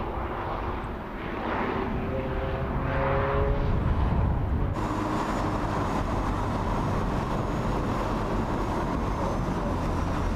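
Audi A3 Cabriolet on the road: its engine rises in pitch as the car accelerates, over tyre and road noise. About halfway through, the sound changes abruptly to a steady run of engine and tyre noise.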